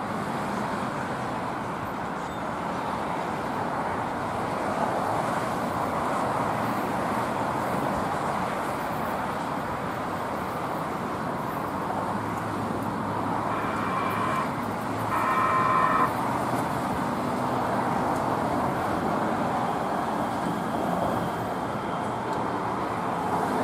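Steady traffic noise, with a Kinkisharyo P3010 light-rail car rolling into the platform. About two-thirds of the way in come two short horn blasts, each about a second long.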